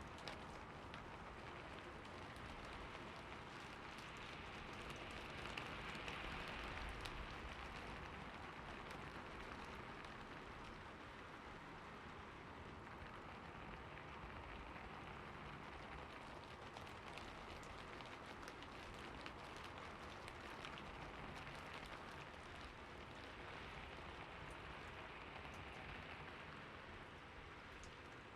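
Steady rain falling on a rooftop, a dense hiss of drops with fine ticks of individual drops, swelling a little in intensity a few times.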